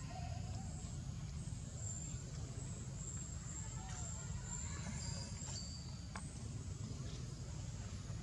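Outdoor background noise: a steady low rumble with a faint high-pitched buzz that comes and goes, and a few faint short calls.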